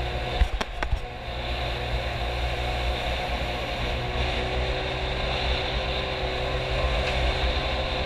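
Small boat's engine running steadily at speed, with water and wind rushing past; a few sharp knocks under a second in.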